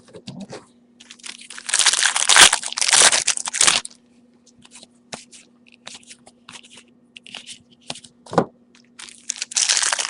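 Foil trading-card pack wrapper being torn open and crinkled, a few seconds of crackling, then light clicks of cards being handled, a single soft knock, and more crinkling of wrapper near the end.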